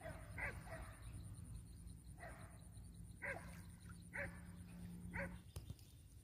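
Faint, short animal calls repeated about once a second, over a low steady hum that stops near the end.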